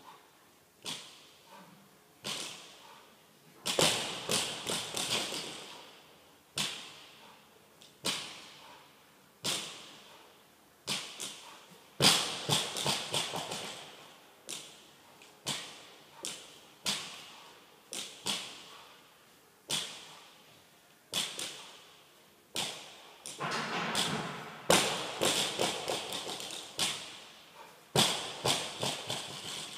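Loaded barbell with bumper plates set down on a rubber gym floor over and over during deadlift reps: a sharp knock with a short echo about every second and a half, and three stretches of quicker rattling clatter as the bar and plates bounce and shift.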